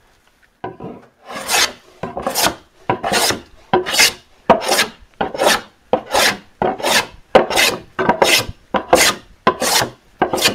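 Freshly tuned and sharpened metal hand plane taking quick, repeated strokes along a rough, saw-marked board: about fourteen strokes, three every two seconds, each one the blade slicing off a shaving. The blade has just been set a little deeper for a fuller cut.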